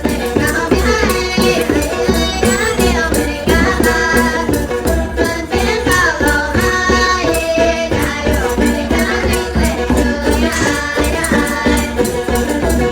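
Folk song sung by costumed performers at the diners' table, over accompaniment with percussion keeping a steady beat.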